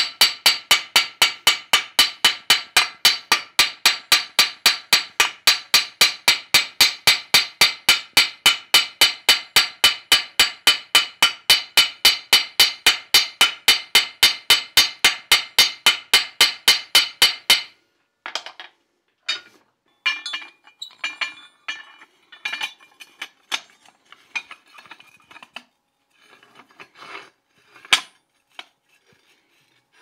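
Hand hammer peening a forged tenon into a rivet head on a steel door-bolt plate held in a vise, re-seating a keeper that did not seat tightly: rapid, even blows, about four a second, each with a metallic ring, stopping abruptly after about eighteen seconds. Then scattered metal clinks and knocks, with one sharp knock near the end.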